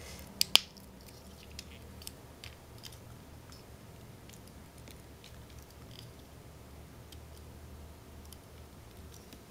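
Hard plastic parts of a Transformers Voyager Grimlock figure clicking as they are folded and pegged into place during transformation: two sharp clicks about half a second in, then faint scattered ticks of handling.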